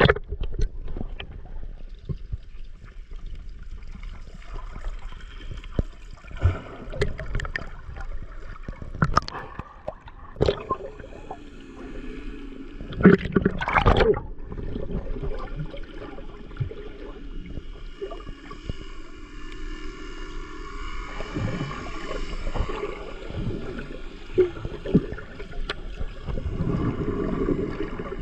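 Sound picked up by a camera held underwater: muffled gurgling and bubbling, with scattered knocks and a louder cluster of knocks and splashes about halfway through.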